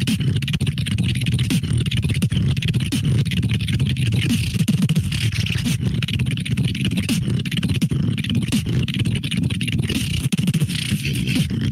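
Beatboxing heard through a voice-chat call: a dense, unbroken bass-heavy pattern with many quick sharp sounds over it.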